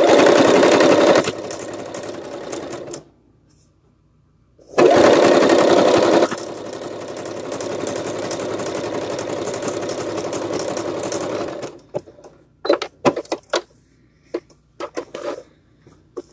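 Singer electric sewing machine stitching through thick plush fabric in two runs, the second starting about five seconds in and lasting about seven seconds. Each run is louder for its first second, then settles to a steadier, quieter run. A few short clicks and knocks follow near the end.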